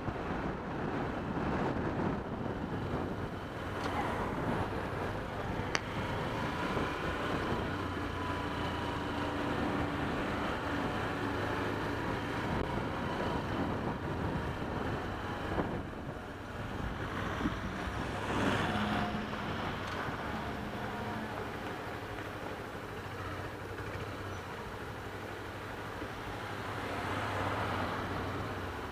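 Motorcycle engine running at low speed in slow-moving street traffic, a steady low hum under tyre and traffic noise.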